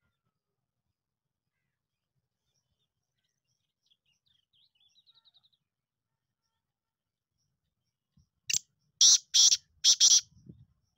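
Black francolin calling: a few faint high chirps about halfway, then a loud series of about five short, harsh call notes near the end.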